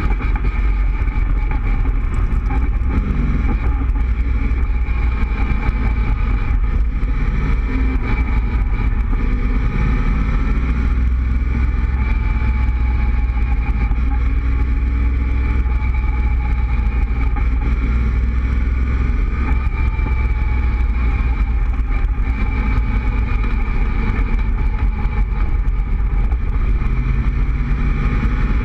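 Cobra roadster's engine running at steady cruising speed, heard from the open cockpit with heavy wind and road rumble; the engine note rises and falls gently through the bends.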